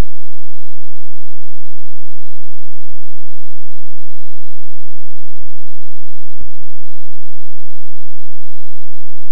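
Very loud low buzzing drone with a rapid throb, typical of a VCR's Hi-Fi audio playing the blank stretch at the start of a VHS tape. A few sharp clicks break through it.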